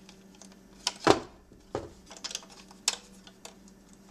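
Sharp clicks and taps of hard plastic PlayStation 1 parts being handled and lined up on their tabs, about half a dozen, the loudest about a second in.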